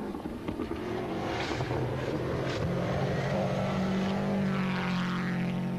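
Subaru Impreza rally car's turbocharged flat-four engine running hard on a gravel stage, its note stepping up in pitch about halfway through, with a hiss of flung gravel.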